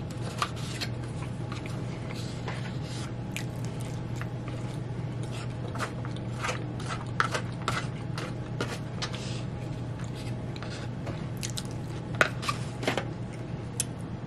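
A metal fork scraping and clicking in a Chipotle burrito bowl as the last of the food is gathered up, with close-up chewing and mouth sounds, over a steady low hum.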